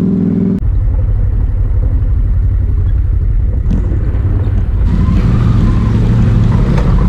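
ATV engines running at low trail speed, a steady low drone. About five seconds in the engine note rises and strengthens as an ATV pushes through a muddy, water-filled rut.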